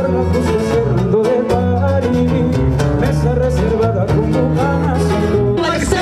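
Band music: acoustic guitar with a bass line and a singing voice, cutting to a different passage near the end.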